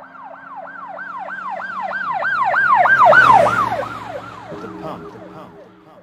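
Emergency-vehicle siren in a fast up-and-down yelp, about three sweeps a second. It grows louder to a peak about three seconds in, then fades away as it passes.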